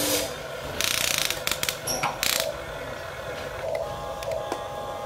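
Toy HUINA remote-control excavator's small electric motors and plastic gearboxes running as the arm and bucket move. Short loud bursts come about a second in and again around two seconds, then it runs more quietly.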